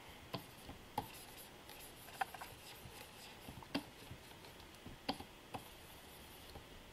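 Faint, scattered light taps and scrapes of a stylus working on a Wacom Cintiq pen display, about half a dozen spread unevenly over a quiet room hiss.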